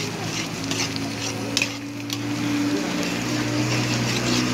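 A metal ladle stirs and scrapes instant noodles in a wet, saucy pan, in quick repeated strokes. There are two sharp metallic clicks of the ladle against the pan about a second and a half and two seconds in.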